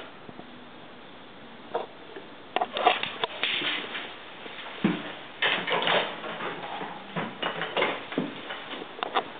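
Irregular knocks, scrapes and rustling with a few sharp clicks, sparse at first and busier from about two and a half seconds in.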